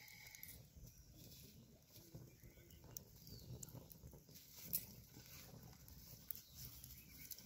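Near silence with faint crackling and a few sharp pops from a small fire of dry twigs and leaves burning in a clay mud stove; the sharpest pop comes a little past the middle.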